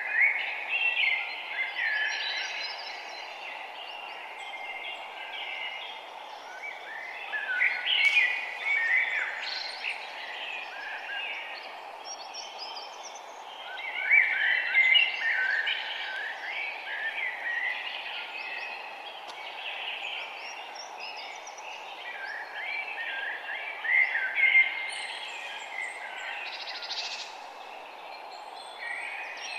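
Several wild birds singing in a forest, chirping and warbling phrases coming in bouts every several seconds, over a steady low background hiss.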